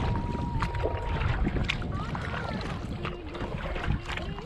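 Kayak paddle strokes splashing in the water, with wind buffeting the microphone.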